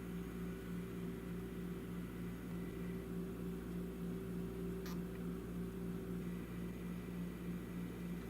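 A steady mechanical hum with an even hiss, with one short click about five seconds in.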